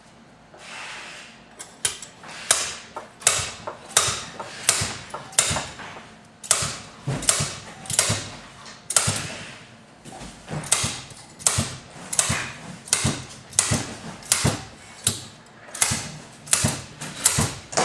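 Snap-on slide hammer being yanked again and again against its stop, sharp metal clanks about one to two a second, starting about two seconds in with a couple of short pauses. It is pulling the needle bearing out of a Bosch 11304 demolition hammer's gear housing.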